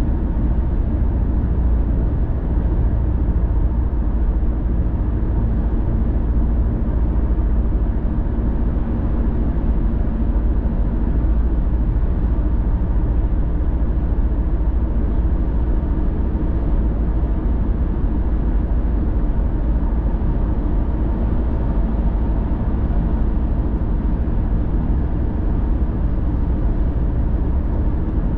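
Car driving at a steady speed: a continuous low rumble of tyre and engine noise that holds even throughout.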